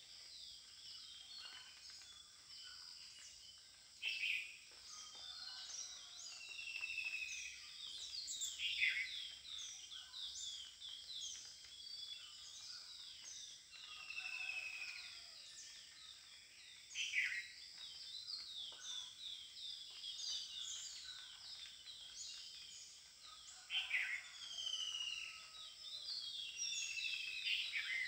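A chorus of many birds chirping, with short whistled notes and trills throughout, and a louder, noisier call that comes four times, several seconds apart.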